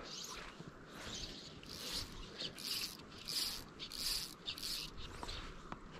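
Fly line hissing through the rod guides in a series of short, soft strokes, about one every two-thirds of a second.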